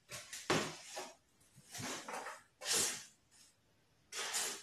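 Handling noise from a hand-built RC model plane's airframe as it is lifted and turned in the hands: about five short, irregular hissing rustles with quiet gaps between them.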